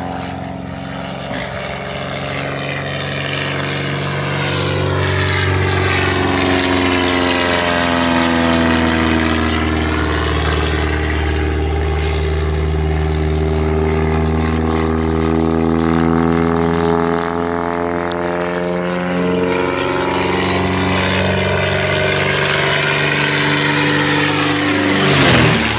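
Agricultural crop-spraying airplane's engine and propeller droning as it flies a low pass, growing louder as it comes in. Near the end it passes close by and the pitch drops sharply as it goes away.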